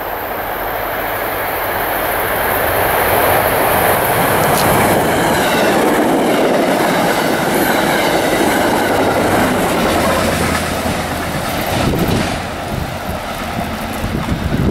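New Jersey Transit diesel passenger train, led by GP40PH-2B locomotive 4203, passing at speed. The wheels rumble on the rails, growing louder over the first few seconds, holding steady as the coaches go by, and easing slightly near the end as the rear passes.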